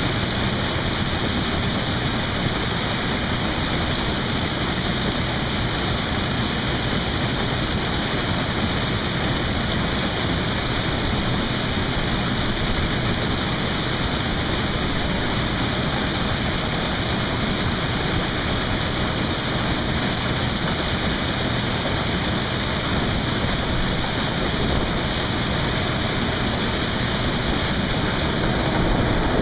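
Corn-harvest machinery running steadily: an even, unbroken rush of machine noise that holds the same level throughout.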